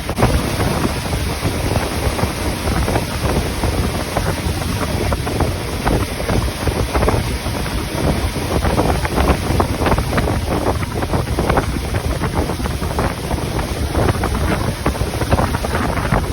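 Wind buffeting the microphone: a loud, gusty rushing, heaviest in the low end.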